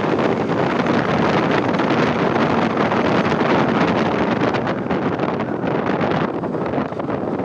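Wind rushing over a helmet-mounted microphone on a moving motorcycle, with the bike's engine running underneath, easing slightly near the end.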